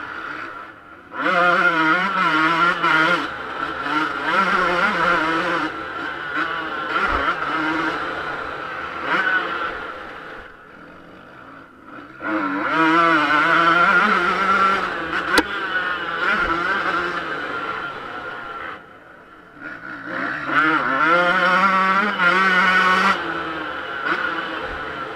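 Yamaha YZ125 two-stroke motocross engine heard on board, revved hard in three long bursts with the throttle shut off in between, its pitch climbing and dropping through the gears. A single sharp tick cuts through about midway.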